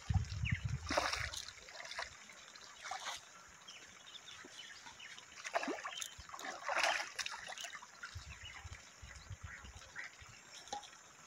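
Hooked tilapia splashing and thrashing at the surface of a pond as it is pulled in to the bank: a few short, irregular splashes.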